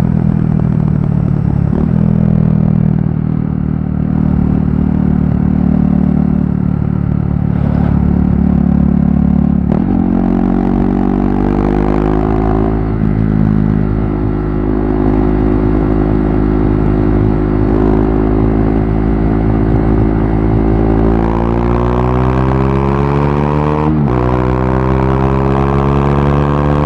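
KTM RC390's single-cylinder engine, running loud through a barrel exhaust with its dB killer removed, while being ridden. The note holds fairly steady, steps up about ten seconds in, then climbs in the last few seconds, drops sharply once and climbs again.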